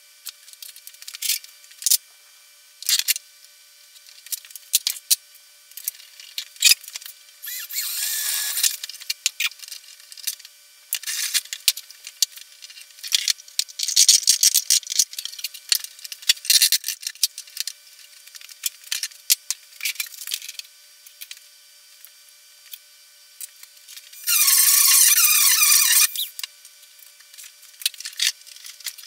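Irregular clicks, knocks and rattles of hands handling a plastic enclosure and small hardware at a workbench. Two longer noisy stretches stand out, the louder one, nearly two seconds long, near the end.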